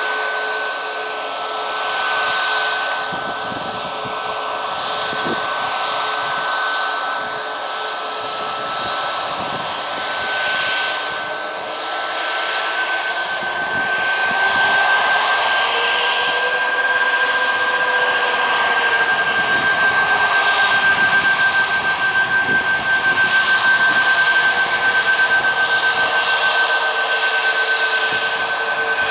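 Boeing 737 MAX 8's CFM LEAP-1B turbofan engines at taxi power: a steady high whine over a rushing hiss. The sound grows louder about halfway through, with a slight pulsing in the later part.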